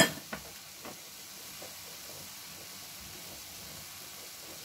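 Minced meat sizzling steadily in an enamelled cast-iron pot, a faint even hiss. A sharp tap at the very start and a couple of fainter clicks just after.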